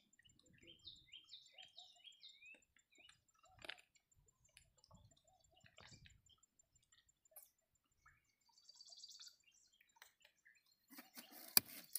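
Faint bird chirping, a run of short falling chirps in the first few seconds, with scattered small clicks. Near the end comes a sharp click and a rush of noise, the loudest thing here.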